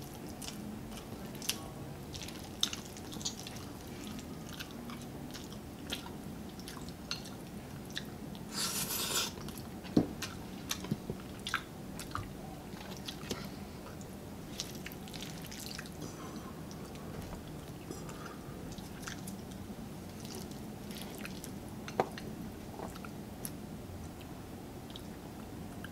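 Close-up eating sounds: chewing food, with frequent sharp clicks of forks and a serving utensil against ceramic bowls and a metal tray. A short rushing noise comes about eight seconds in, and single loud clicks at about ten seconds and again near twenty-two seconds.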